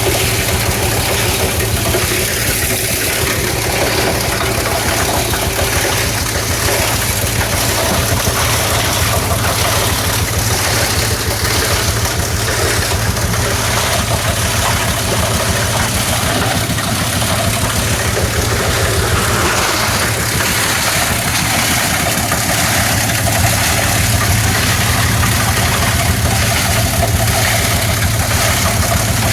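Single-cylinder Eicher tractor diesel engine running steadily, driving a plastic scrap grinding machine.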